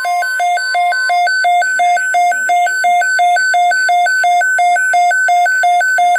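Emergency alert tone: a buzzy electronic two-note signal alternating evenly between a low and a high pitch a few times a second, loud and unbroken. A fainter steady tone underneath stops about a second in.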